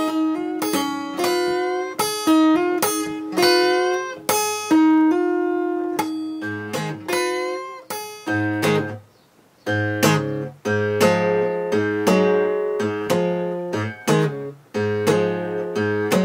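Acoustic guitar played fingerstyle in a blues shuffle. The first half is a run of picked licks with bent notes. After a short pause about nine seconds in, a repeating rhythm of low bass notes and chord stabs begins.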